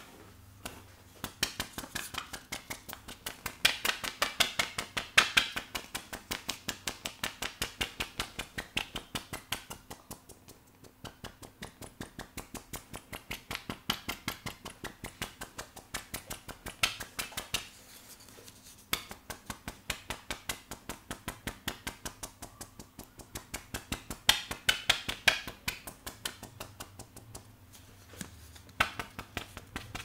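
Round plastic bristle scalp-massage brush worked rapidly over wet hair and scalp, making a fast, steady run of clicks and scratches. It grows louder in a couple of stretches.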